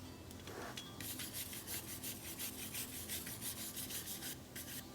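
Fine stainless steel wire brush scrubbing back and forth over an aluminum horseshoe to polish it, in quick, even strokes about four a second, starting about a second in and pausing briefly near the end.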